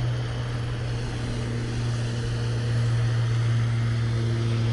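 A steady low mechanical hum, unchanging, with a faint even hiss beneath it.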